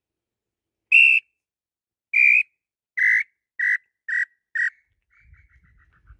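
Wooden tinamou call (pio) blown in the song of the lambu pé-roxo (tataupa tinamou): six clear whistled notes that fall slightly in pitch and come faster and faster, trailing off into a faint quick descending trill.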